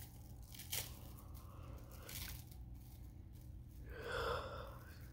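Faint handling noises with a sharp click under a second in, then a short breathy vocal sound about four seconds in.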